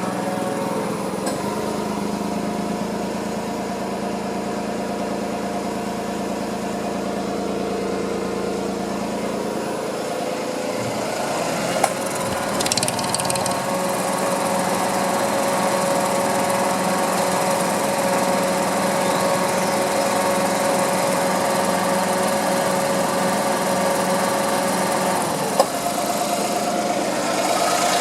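Nissan Moco's 660 cc three-cylinder engine running steadily, its tone shifting about ten seconds in, with a couple of sharp clicks.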